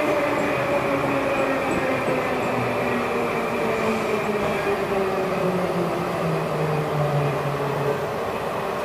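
Inside a Metrowagonmash 81-775 "Moscow-2024" metro car under way: the electric traction drive whines in several tones that slowly fall in pitch as the train slows, over the steady rumble of the wheels on the rails.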